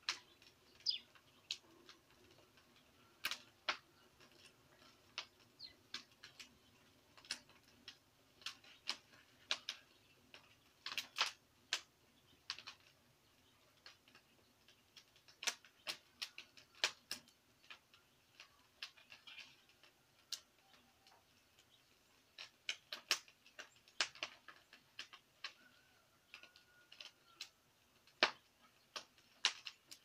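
Small wood fire crackling, scorching the bottom of a stack of wooden beehive boxes: irregular sharp pops and snaps, sometimes several in quick succession.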